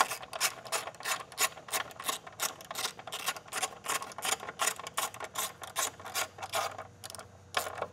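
Hand ratchet clicking steadily, about four clicks a second, as the 8 mm bolt holding the plastic engine cover is run back down.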